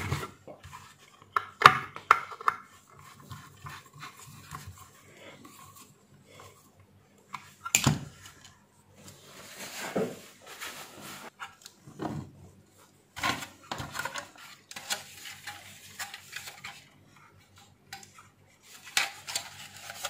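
Irregular clicks, knocks and light rattles of a steam iron's hard plastic housing parts being handled and fitted together during reassembly. The loudest knocks come about two seconds and eight seconds in.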